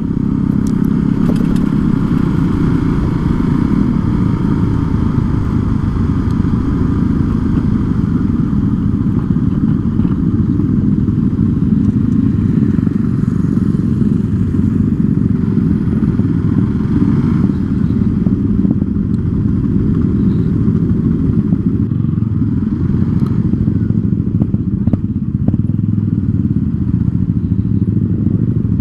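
Motorcycle engine running steadily as the bike is ridden along, heard from the bike itself, together with road noise.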